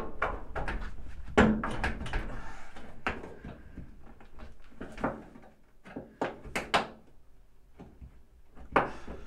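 Flat screwdriver prying under the plastic top panel of an LG WaveForce top-loading washer to release its retaining tangs: irregular plastic clicks, knocks and scraping, with a sharp knock at the start, another about a second and a half in, a pair around six and a half seconds and one more near the end.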